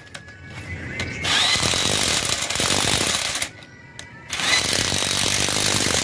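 Handheld power tool driving fasteners on a Hino 7D diesel cylinder head. It runs in two bursts of about two seconds each with a short pause between, and each burst starts with a rising whine as the motor spins up.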